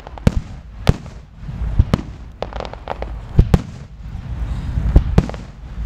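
Aerial firework shells bursting: about seven sharp bangs at irregular intervals, some in quick pairs, over a continuous low rumble.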